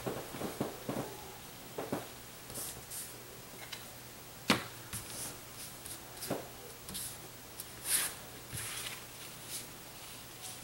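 Trading cards being handled and slid across a cloth playmat: soft scattered rustles and light clicks, with a sharper tap about four and a half seconds in.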